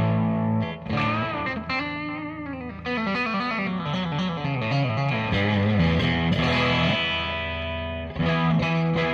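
Electric guitar being played: a held chord, then a descending run of single notes through the middle, then ringing chords again, with a new strum near the end.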